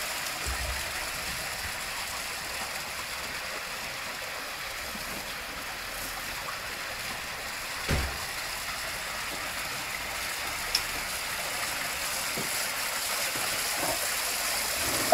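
Small garden rock waterfall: water spilling over stacked stones into a pond, a steady splashing trickle. A soft low thump comes about halfway through.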